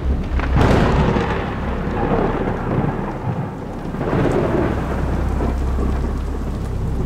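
Thunderstorm with steady rain: a sharp thunder crack about half a second in that trails off into a long rumble, and a second swell of thunder about four seconds in.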